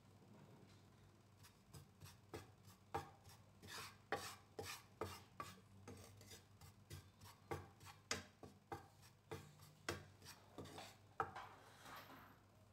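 Wooden spatula scraping and tapping against a frying pan, stirring spice powders that are dry-roasting. It is a quick series of short strokes, about two or three a second.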